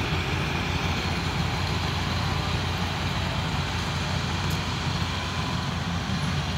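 Diesel engines of two rice combine harvesters, a Yanmar 82 and a modified 70, running steadily with an even low drone.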